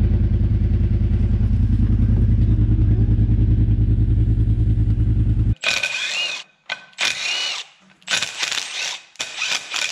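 A loud, low, rapidly pulsing engine-like rumble that cuts off abruptly about five and a half seconds in, followed by four short bursts of a cordless impact driver run against the brake drum.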